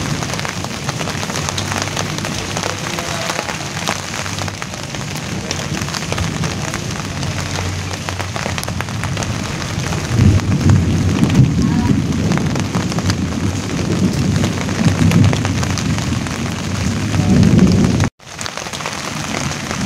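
Rain falling on large broad leaves, a steady patter of many small drop taps. From about halfway through, a low rumble swells and wavers beneath the rain, and the sound cuts out for an instant near the end.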